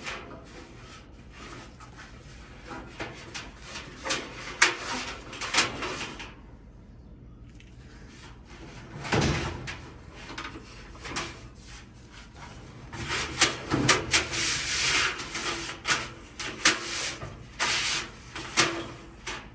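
Handling noises as a rubber drive belt is worked over a clothes dryer's drum: irregular rubbing and scraping with scattered clicks and knocks, a dull thump about nine seconds in, and denser scraping near the end.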